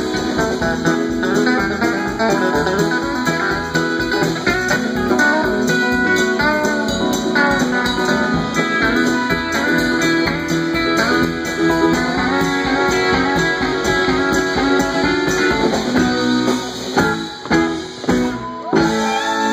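Country-rock band playing an instrumental passage live, with electric guitar, pedal steel guitar, acoustic guitar and drums. The music thins out near the end and stops for a moment before starting again.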